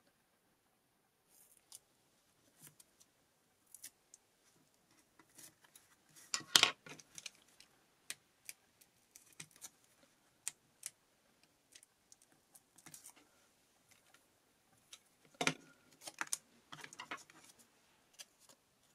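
Scattered light clicks, taps and paper rustles from hands working small paper cut-outs and craft tools on a cutting mat. Two sharper knocks stand out, about six and a half seconds in and again around fifteen seconds.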